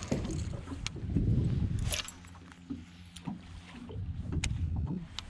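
Small fishing boat on a lake: a low rumble of water and wind around the hull that swells twice, over a steady low hum, with a few light knocks.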